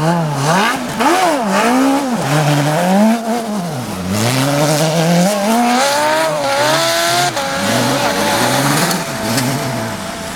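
Shortcar rally car engine revving hard on snow, its pitch climbing and falling again and again as the throttle is worked. Near the middle it makes one long climb that drops off sharply, then the note holds steadier near the end.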